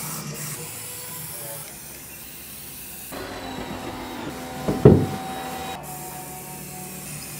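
Aerosol spray paint hissing from a can as wooden shelf units are sprayed black, dropping away for a stretch in the middle before coming back. A single knock about five seconds in is the loudest sound.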